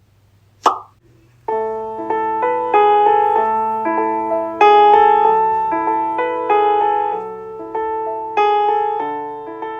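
Gentle solo piano background music begins about a second and a half in, with notes struck one after another. It is preceded by a single short, sharp sound just after a near-silent start.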